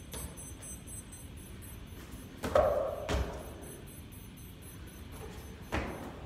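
Thuds of hands and feet landing on an exercise mat during burpees. Several separate impacts, the loudest about two and a half seconds in.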